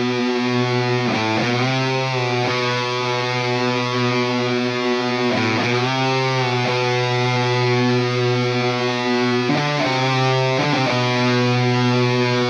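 Background rock music led by distorted electric guitar, holding sustained chords that change every few seconds.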